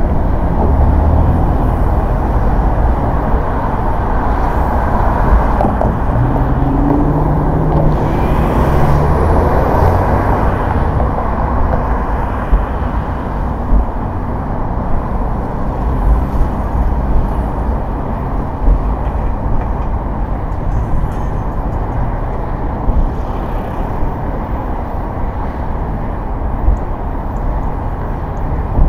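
Car driving on city streets: a steady low rumble of road, tyre and engine noise from traffic.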